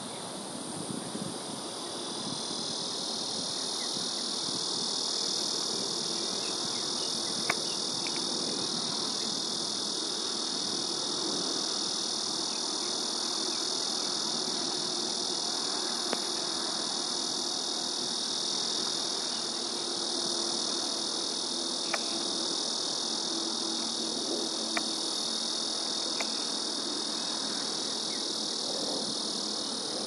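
Steady, dense insect chorus, a continuous high-pitched buzzing that swells slightly in the first couple of seconds and then holds. A few sharp clicks are scattered through it.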